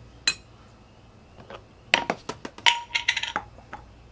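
Metal spoon clinking against a ceramic bowl and a glass relish jar as relish is spooned and knocked off into the bowl. One sharp clink comes about a third of a second in, then a quick run of clinks and taps, some ringing, about two seconds in.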